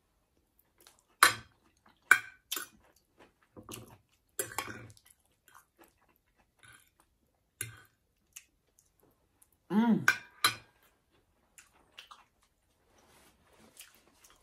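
Close-miked eating: wet chewing and crunching of food, with sharp clicks of a fork against a plate. About ten seconds in there is a short vocal sound that bends in pitch.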